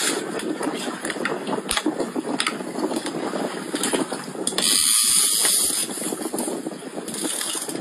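Fishing reel clicking and ratcheting rapidly and continuously under the load of a big blue catfish on the line. A short gust of wind noise comes in about five seconds in.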